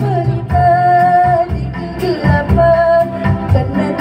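A female solo vocalist singing into a handheld microphone over backing music, holding long notes with vibrato, one about half a second in and another near the three-second mark.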